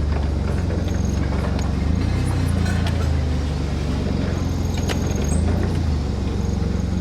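Small forklift's engine running steadily while pallets are moved, with scattered light clicks and knocks.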